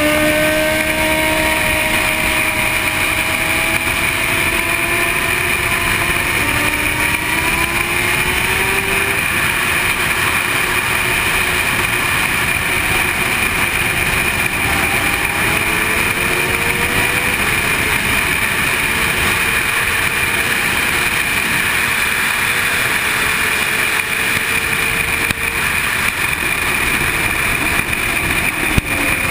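Sport motorcycle's engine running hard on track, its pitch climbing in long rises through the first half and then holding steady, under a constant rush of wind on a camera mounted on the bike.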